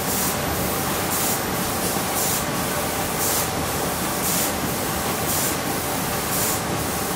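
Sheet-fed film laminating machine running: a steady mechanical hiss with a brighter rush of high hiss about once a second.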